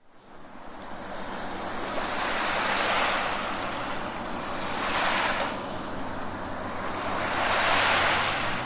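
Sound effect of ocean surf: waves washing in, fading up from silence at the start and swelling and receding about three times.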